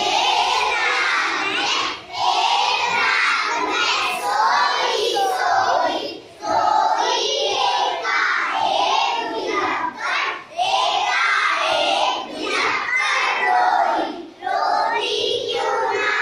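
A class of young children singing a Hindi nursery rhyme together in unison, line after line, with a short breath-pause about every four seconds.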